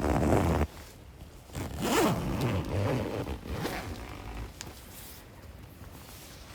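A zipper being pulled: one quick scratchy pull right at the start, then a longer pull between about one and a half and three seconds in, followed by light rustling.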